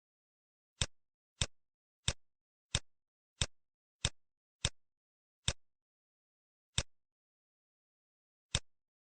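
Computer mouse button clicks: ten sharp single clicks, most about two-thirds of a second apart, then slower and more spaced out near the end, with dead silence between.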